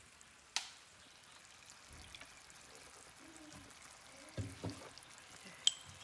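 Water being poured into a small bowl of cornstarch to make a slurry, with a click at the start and a spoon clinking against the bowl near the end.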